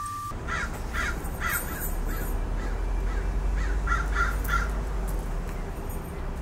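A crow cawing in two runs of short repeated caws, four or five calls each, the second run starting about four seconds in, over steady outdoor background noise. A wind-chime tone stops just at the start.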